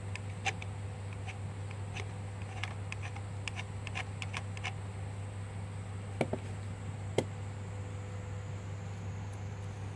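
Light scattered clicks and taps of small parts and tools being handled at a workbench, with two sharper knocks about six and seven seconds in, over a steady low electrical hum.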